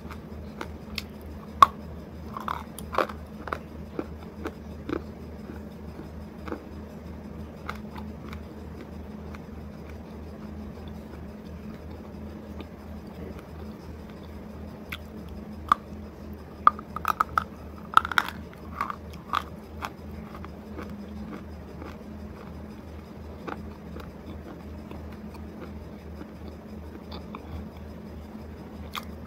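Crisp biting and crunchy chewing of a hard white triangular piece, close to the mouth on a lavalier mic. The crunches come in two bursts, one about a second in and another about fifteen seconds in, with a steady low hum between them.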